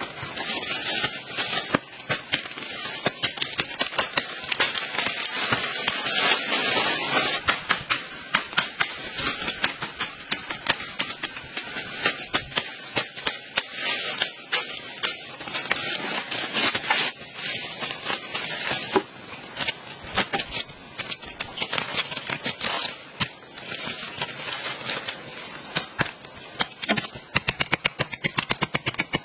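A machete chopping through green brush and saplings: a long run of sharp strikes with leaves rustling. In the last third the chops come quicker, cutting into a green stake.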